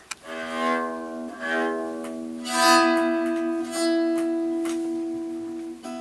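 Homemade string instrument played with a bow: long sustained notes, a new one coming in about once a second for the first few seconds, the last held and slowly fading.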